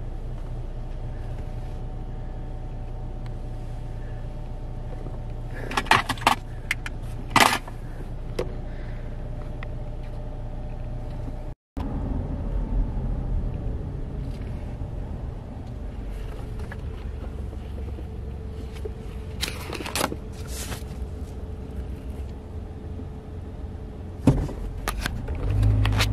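Car interior sound: the engine running with a steady low hum, broken by a few sharp clicks and rattles about six to seven and a half seconds in and again about twenty seconds in. After a brief cut the car is driving, with a heavier road rumble.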